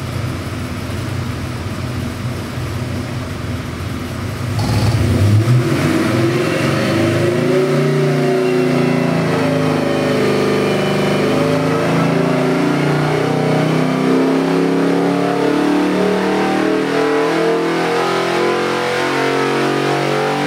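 392-cubic-inch Gen III Hemi stroker V8 running on an engine dyno: idling smoothly, then about four and a half seconds in it goes to full throttle. It pulls a sweep test under load, the pitch climbing steadily from about 3,000 to nearly 5,700 rpm.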